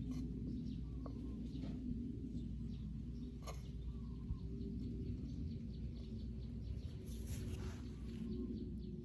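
Birds chirping faintly over a steady low background rumble, with a few light clicks.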